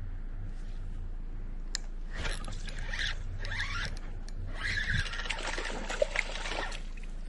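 Scraping and rustling close to the microphone as the fishing rod and spinning reel are handled, ending with two sharp clicks.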